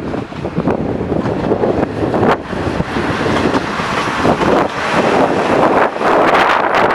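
Strong gusty wind buffeting the microphone, a loud rushing that swells and eases, with a few brief knocks.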